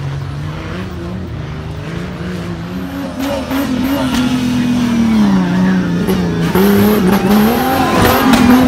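Off-road 4x4 race car's engine revving under load, its pitch rising and falling and growing louder from about three seconds in.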